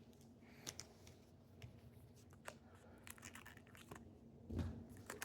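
Faint rustling and scattered light clicks of a trading-card pack wrapper being torn and the cards handled, with a soft thump near the end.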